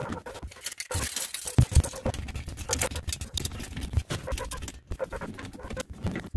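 Irregular clicking, knocking and rustling of hands working drain pipe parts under a bathroom vanity, with two sharper knocks about a second and a half in.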